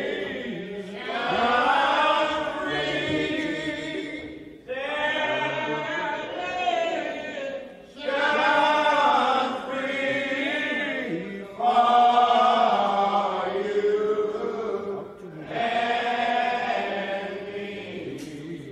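Men's voices singing a slow hymn together in long, drawn-out phrases of a few seconds each, with short breaks between them.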